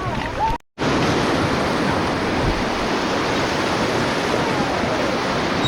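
Steady rush of river rapids and white water, mixed with wind buffeting the microphone. A brief dropout to silence comes just under a second in.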